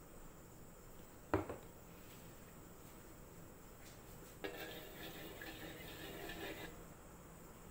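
A single sharp knock, then a wooden spatula scraping around the bottom of a metal wok through the cooking oil for about two seconds.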